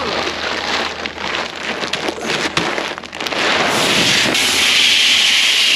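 Dried shelled corn pouring out of a feed sack, a rattling hiss of kernels. About halfway through it becomes a louder, steadier rush.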